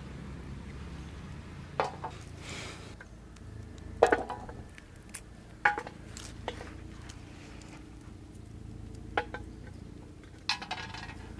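Manila tamarind pods being shelled by hand, with pieces dropped onto stainless steel plates: a handful of short, sharp metallic clinks, the loudest about four seconds in.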